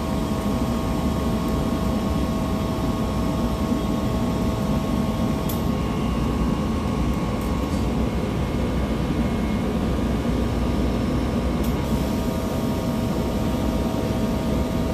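Air-conditioning unit with a Copeland digital scroll compressor running steadily: an even mechanical hum with a faint whine over it. The whine drops out for about six seconds in the middle, with a faint click where it stops and another where it returns.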